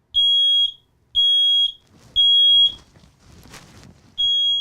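A newly installed smoke alarm with a sealed 10-year battery sounds its test signal: three loud, high-pitched beeps about a second apart, a pause, then the next set of three begins near the end. This is the temporal-three alarm pattern, and it shows the alarm is working.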